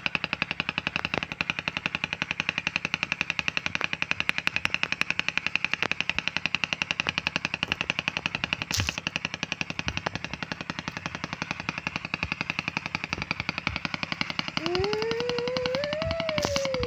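Insects chirring in a fast, steady, even pulse. Near the end a goat gives one long bleat that rises and then falls in pitch.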